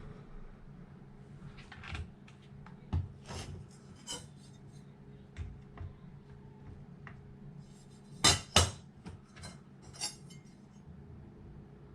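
Small metal tools and hardware being handled on a workbench: scattered clicks, taps and clinks, with two loud sharp knocks in quick succession about eight seconds in, over a steady low hum.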